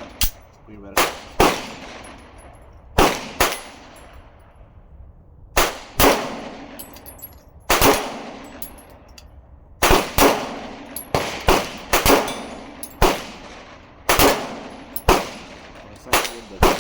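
Springfield XD Mod.3 pistol being fired, about twenty shots in uneven strings of singles and quick pairs, each shot trailing off in a short echo.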